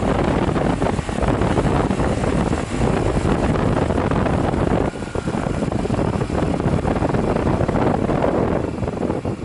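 Onboard riding sound of a Honda Varadero 125 motorcycle: steady wind rush over the microphone with the 125 cc V-twin engine running underneath. There is a brief dip about five seconds in, and the noise starts to fade near the end.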